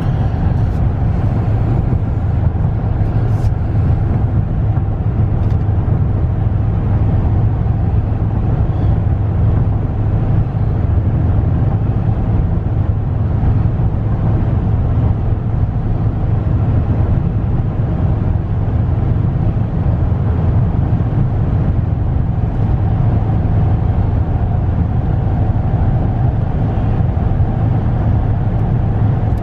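Steady in-cab drone of a 2015 Ram 1500's 5.7-litre Hemi V8 and tyre and road noise while cruising at a constant 55 mph, a low hum with no change in pitch; the engine is running on four cylinders in its fuel-saving mode.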